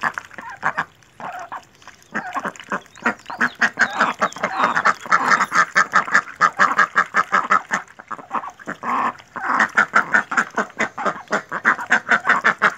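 Several white domestic ducks feeding from a bowl of water and sweet corn: a fast, chattering run of bill dabbling and slurping mixed with quacks. It is sparse at first and becomes dense from about two seconds in.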